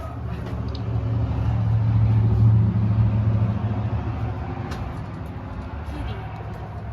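A motor vehicle's low engine rumble that swells to its loudest about two and a half seconds in and then slowly fades.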